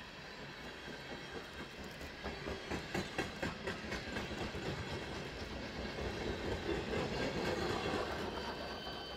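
Freight train cars rolling past, steel wheels clacking in quick runs over rail joints under a steady rumble, growing louder past the middle and easing off near the end.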